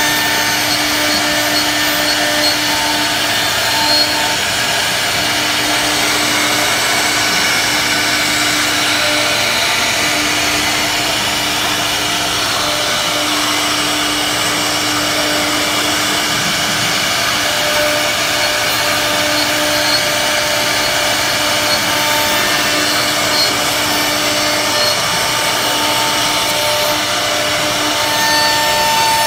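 CNC router spindle carving a floral relief into a wooden panel with a rotary bit. It runs steadily, a whine from the spindle over the noise of the bit cutting through the wood.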